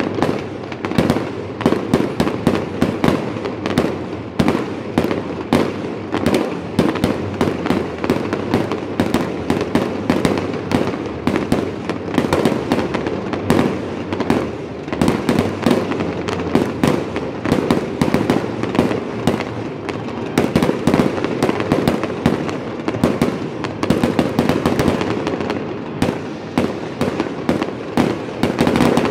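Aerial firework shells bursting in a continuous barrage, several bangs and crackles a second without a pause.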